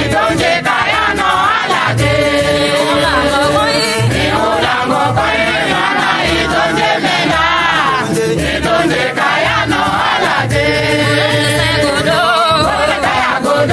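Chadian Christian song: several voices singing together as a choir over a repeating low bass line.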